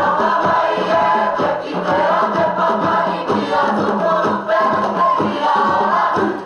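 Cook Islands performing group singing together, many voices in harmony, with a steady beat underneath.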